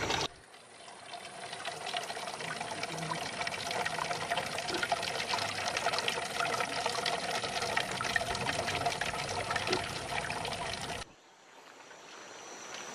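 Water trickling and pouring steadily, with fine splashes. It cuts off abruptly about eleven seconds in, and a fainter sound slowly rises after it.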